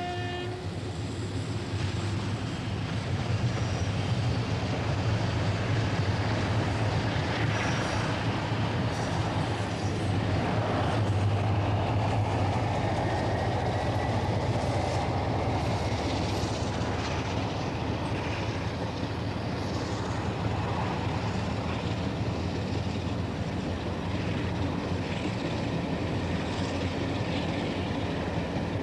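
Train running on the rails: a steady rumble that fades in over the first couple of seconds, with a faint rising whine near the middle.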